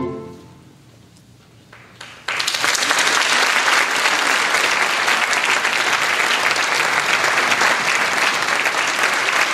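A concert band's final chord fades out in the hall. After about two seconds of near quiet, audience applause breaks out suddenly and carries on steadily.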